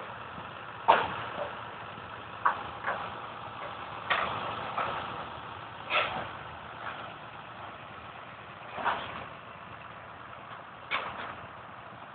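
Fire engine's motor running steadily, with sharp, irregular knocks and cracks every second or two over it.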